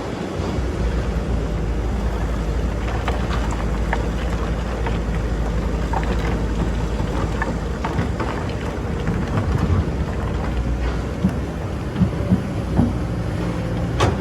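Excavator engine running steadily under load while digging sand, with a few sharp knocks near the end.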